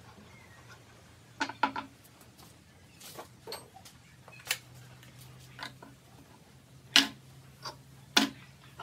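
Irregular sharp metal clicks and knocks from the parts of a homemade metal lathe's slide being handled and fitted, over a faint low steady hum. A quick cluster of clicks comes early, and the loudest knock comes about two-thirds of the way through.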